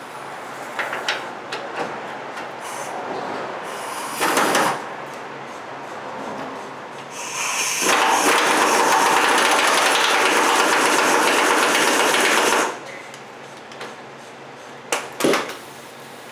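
Hand ratchet wrench loosening a steering-rack bolt. First comes scattered metal-on-metal clicks and clanks, with a short loud clank about four seconds in. Then comes a long run of rapid ratcheting lasting about five seconds.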